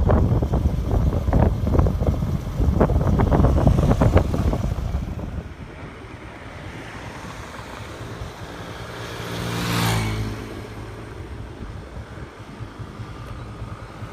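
Wind buffeting the microphone with loud irregular crackling for about the first five seconds, then steady road-traffic noise with one vehicle passing, loudest about ten seconds in.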